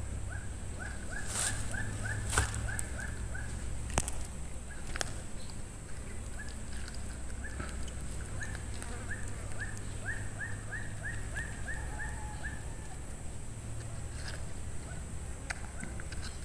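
An animal calling in a rapid series of short, high chirps, about four a second, in two runs: one in the first three seconds and a longer one from about six to twelve seconds in. A steady low rumble runs under it, with a few sharp clicks in the first five seconds.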